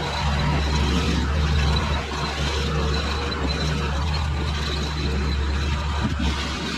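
Skid steer engine running steadily with a low drone.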